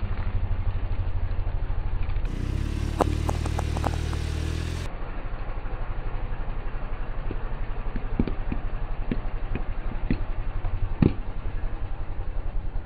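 Car engine idling with a steady pulsing rumble while the tyre rolls slowly over objects on asphalt. A cluster of sharp cracks comes a few seconds in, then single cracks and crunches, the loudest near the end, as sticks of sidewalk chalk break under the tyre.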